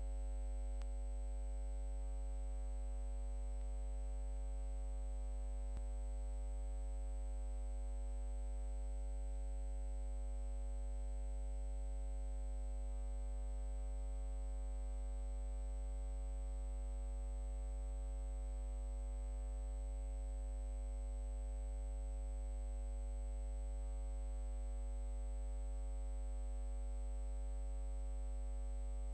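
Steady electrical hum: a deep low hum with several higher tones layered over it and a faint high-pitched whine, unchanging throughout.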